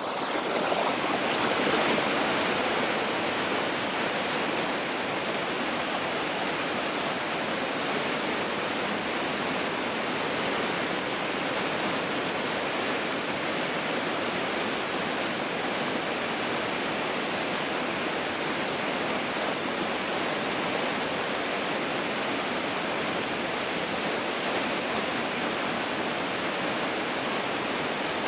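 Water pouring over a waterfall on a river, a steady, even rush of falling and churning white water.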